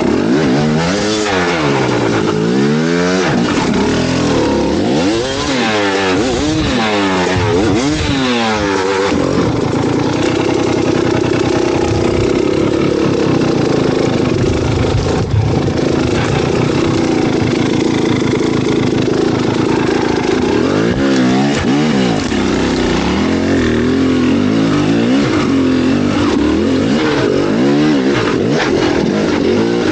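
An engine running loud and continuously, its pitch rising and falling again and again over the first nine seconds, holding steadier through the middle, then rising and falling a few more times near the end.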